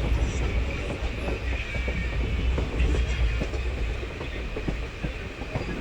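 Moving train: a steady low rumble with irregular clattering of the wheels over the rails.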